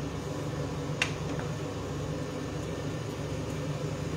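Kitchen range hood fan running with a steady hum, with one sharp knock about a second in.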